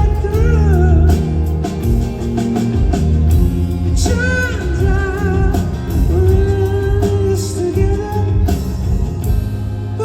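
Live band music: a sung vocal line wavering in pitch over a full band, with a strong bass part and regular drum hits.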